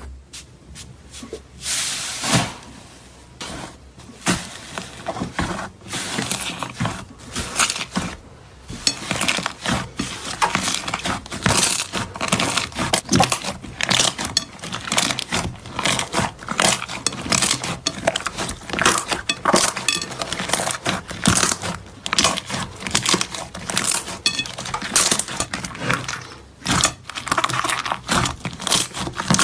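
Slime being played with: a dense, continuous run of sticky clicks, pops and crackles as it is squeezed and pulled.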